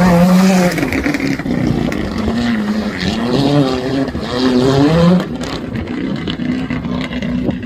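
Hyundai i20 R5 rally car's turbocharged four-cylinder engine driving hard past on a gravel stage, its pitch climbing and dropping three or four times as it shifts up through the gears. About five seconds in, the sound drops away and the engine note carries on quieter and steadier.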